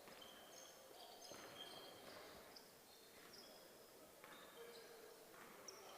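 Faint gym sound with a light haze of background noise and several short, high squeaks, like basketball shoes on a hardwood court.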